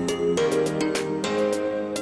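Background music: sustained instrumental notes over a quick, light percussive beat.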